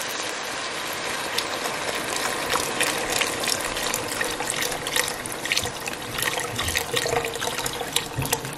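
Vegetable broth pouring in a steady stream from a carton into a Dutch oven full of sautéed vegetables, with many small crackles from about a second and a half in.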